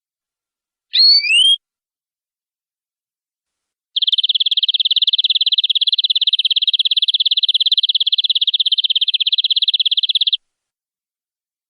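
Domestic canary singing: a short rising whistle about a second in, then from about four seconds a long, very fast trill held for about six seconds before it stops.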